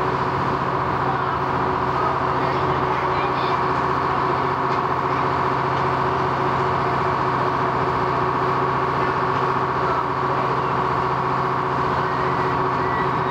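A ferry's engine running with a steady drone, heard from on board. It holds the same pitch and level throughout.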